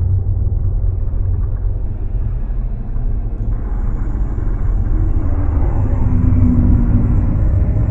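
Deep, steady rumble of a LEGO train running toward the camera on plastic track, pitched down by slow-motion playback, with a low hum of steady tones joining about five seconds in.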